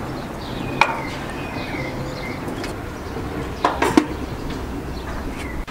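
Small birds chirping, with a sharp click about a second in and a brief clatter of knocks just before four seconds.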